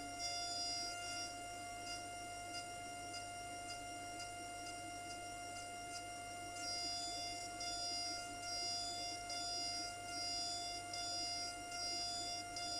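SycoTec KaVo high-speed milling spindle whining steadily as its end mill makes a finishing pass in aluminum. A faint, higher cutting rasp pulses about one and a half times a second near the start and again from about halfway on.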